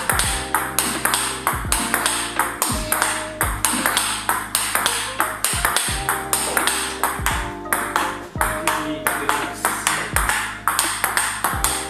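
Table tennis rally: quick, sharp clicks of a celluloid-type ball bouncing on the table and struck in forehand drives with a racket faced with Tibhar Hybrid K3 rubber, several hits a second. Background music with a steady beat runs underneath.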